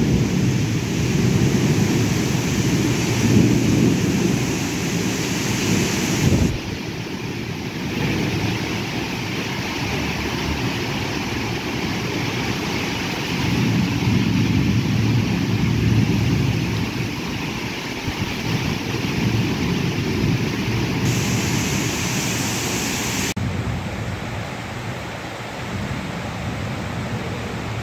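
Heavy rain driven by strong, gusty wind, with gusts buffeting the microphone in a deep rumble under the hiss of the rain. The gusts ease off toward the end.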